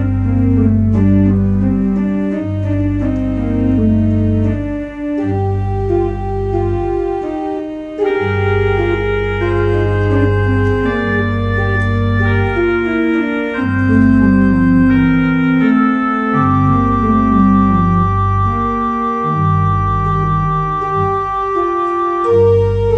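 Church organ playing slow sustained chords over a deep bass, in phrases with short breaks where the bass drops out.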